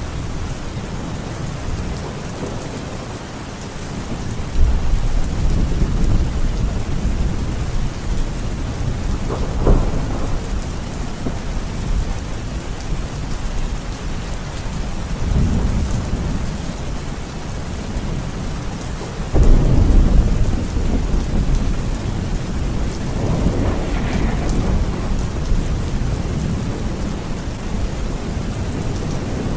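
Heavy rain falling steadily, with thunder rumbling low several times, the loudest roll about two-thirds of the way through.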